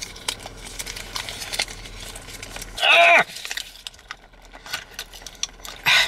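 Low hum of a car idling, heard inside the cabin with faint ticks, which stops about three seconds in; at that moment a man makes one short, pitched vocal sound.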